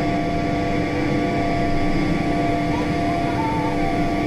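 Learjet 45's rear-mounted Honeywell TFE731 turbofan heard from inside the cabin during the climb-out just after takeoff: a steady rush with several steady humming tones.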